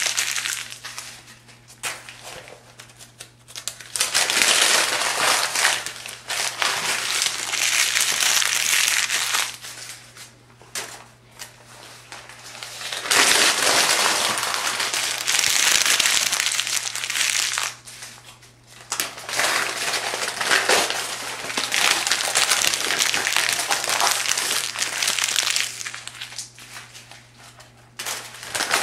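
Thin phone book pages being crumpled and crackling, in long bursts of several seconds with short quieter pauses between.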